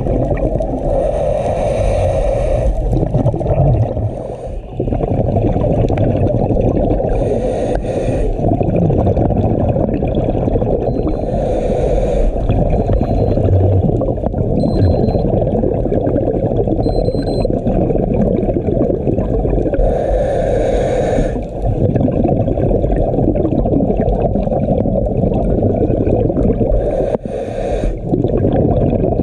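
Muffled underwater noise heard through an action camera's waterproof housing, with a scuba diver's exhaled regulator bubbles gurgling past in bursts, five times, several seconds apart.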